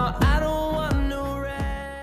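Background pop music with a steady drum beat, fading out.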